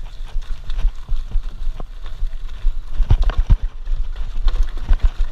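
Mountain bike rolling fast down a rough dirt and rock trail: tyres crunching over loose gravel and stones, with repeated sharp knocks and rattles from the bike over the bumps, thickest about three seconds in. A steady low rumble of wind buffets the microphone throughout.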